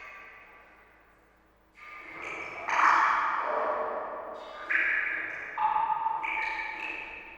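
Water drops falling into water, each a pitched, ringing plink that fades slowly. There are about six drops, at differing pitches, after a short lull near the start.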